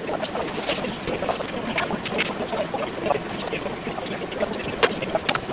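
Bento cups being set out one by one on a metal tray, with light clicks and rustles as they go down, the sharpest near the end. Under it runs a steady background noise.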